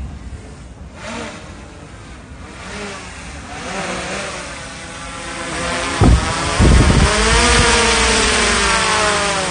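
A motor vehicle's engine approaches and grows louder, its pitch rising as it speeds up, then holds near its loudest while the pitch slowly sinks as it passes. Two short low thumps come at about its loudest point.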